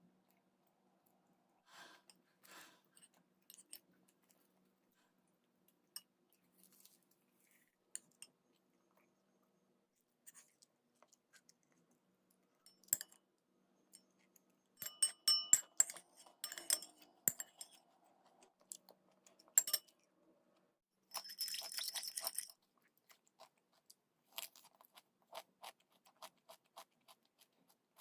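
Quiet eating sounds at home: crunchy chewing and bites, with scattered light clicks and taps of dishes and utensils, thickest about halfway through, and a brief noisy rustle about three-quarters of the way in.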